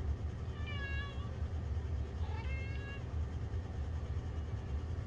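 A house cat meowing twice, short high-pitched calls about half a second in and about two and a half seconds in. The cat wants to go outside. A steady low hum runs underneath.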